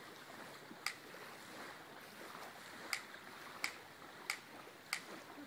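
Spark igniter of a combustion potato cannon clicking repeatedly without the gun going off: one sharp click, then four more about two-thirds of a second apart. This is a misfire, with the charge not lighting.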